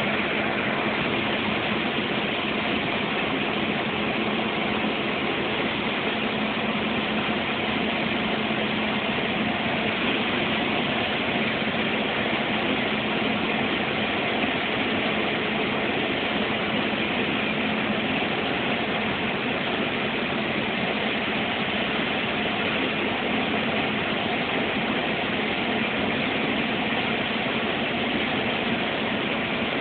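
Engine and road noise heard inside a bus cab at cruising speed: a steady drone with a faint constant hum.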